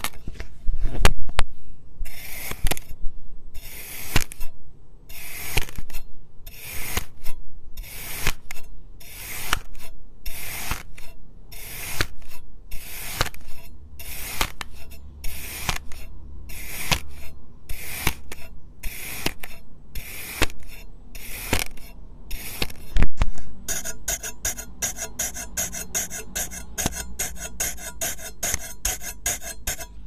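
Knife blade cutting through kinetic sand: a crunchy rasp with each stroke, about two cuts a second in a steady rhythm. Near the end a single loud knock, followed by a faster, finer crackling.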